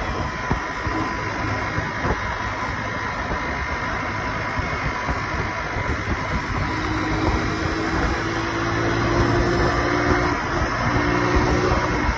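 Honda motorcycle cruising at highway speed: steady engine note mixed with a constant rush of wind and road noise.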